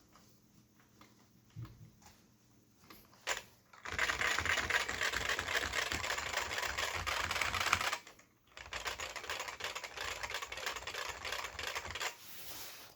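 Typing on a Sejin SKM-2000 keyboard with Futaba MA switches and ABS keycaps. A few single key presses come first, then fast continuous typing from about four seconds in. A short pause just after eight seconds is followed by more fast typing that tails off near the end.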